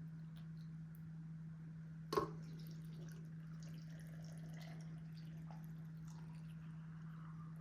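Cold water being poured into glass jars of cut vegetables: faint trickling and drips, with one sharp clink about two seconds in. A steady low hum runs underneath.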